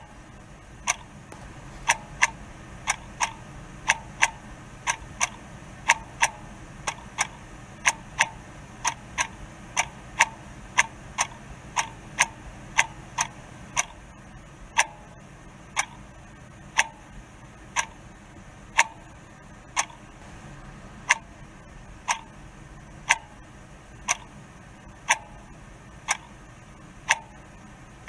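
Sharp, regular ticks. For about the first half, two once-a-second series run out of step with each other; after that a single tick sounds once a second.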